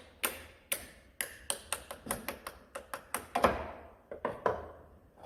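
Hammer striking a makeshift steel drift in place of a brass one, knocking on the Bobcat S150's hydraulic ram mounting: a run of about fifteen sharp metallic taps with a short ring after each, quickest in the middle, the hardest blow about three and a half seconds in.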